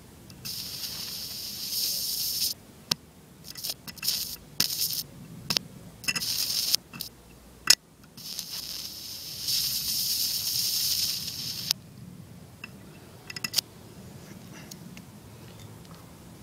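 Low-voltage DC arc from two 80-watt solar panels in series (about 40 volts, 5 amps) drawn against sheet metal: hissing, crackling bursts that flare and cut out again and again as the arc is struck and lost. The two longest bursts run about two seconds each, near the start and about ten seconds in, followed by a few faint clicks. The arc melts the metal but does not make a weld.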